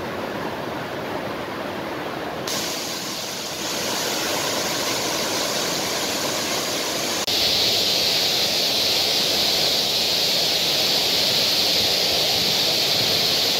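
Curug Cikaso waterfall's falling water rushing, a steady dense hiss of water and spray. It changes abruptly twice, turning louder and brighter about seven seconds in.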